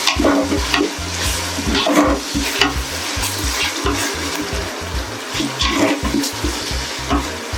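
A ladle stirring and scraping ginger-garlic paste into onions and tomatoes frying in oil in a pot: a steady sizzle with repeated short scraping strokes.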